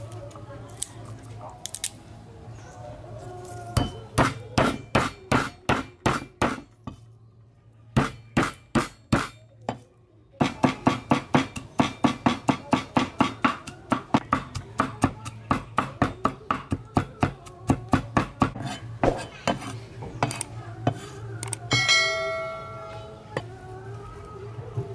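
A cleaver chopping garlic on a wooden chopping board: runs of quick, even knocks, about three to four a second, with a couple of short pauses. Near the end a brief ringing tone sounds.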